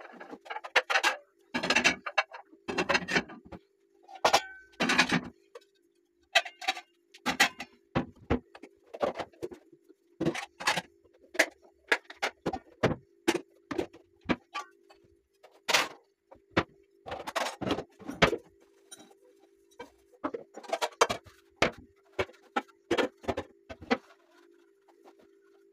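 Irregular clattering of hard objects being handled: quick clicks and knocks in uneven clusters, over a steady low hum.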